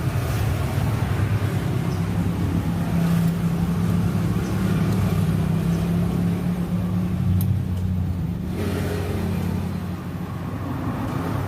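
Steady low engine-like hum, as of a vehicle engine running, with a faint click or two.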